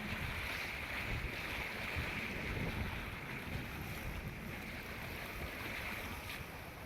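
Heavy rain falling steadily, a continuous hiss, with wind rumbling on the microphone.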